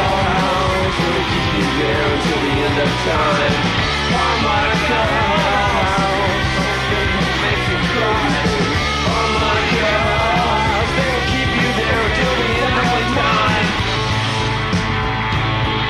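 A loud live rock band playing raw, punk-style rock, with a wavering, bending lead line over the full band.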